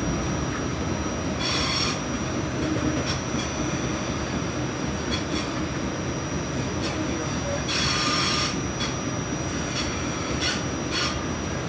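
RTA Blue Line Breda light rail car running along the track, heard from on board: a steady rumble with two short bursts of wheel squeal, about a second and a half in and again about eight seconds in, and scattered clicks from the wheels over rail joints.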